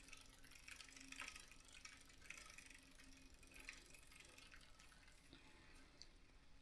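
Near silence: faint scattered ticks over a faint steady hum.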